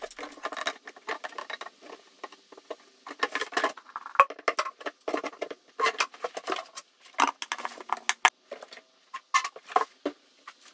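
Irregular knocks, taps and scrapes of a large plastic trash can and its lid being handled, turned and fitted together.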